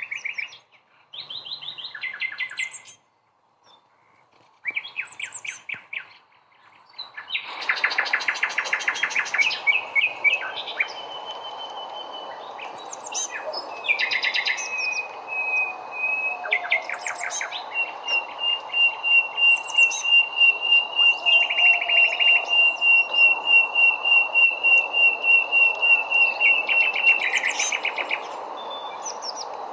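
Birds singing: repeated short chirps and trills, then a long fast trill held on one pitch through the second half, over a steady outdoor background hiss.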